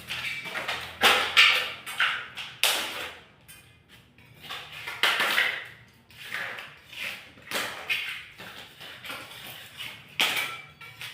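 Repeated scraping strokes of a hand tool against a wall, about one a second, uneven in strength, as in scraping or sanding old paint during wall repair.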